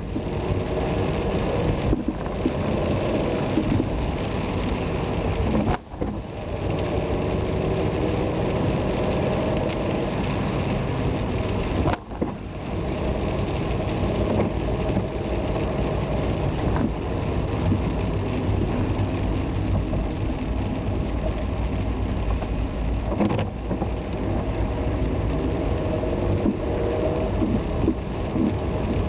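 Vehicle engine running steadily on the move, under a hiss of rain and road noise. The sound drops out briefly twice, about six and twelve seconds in.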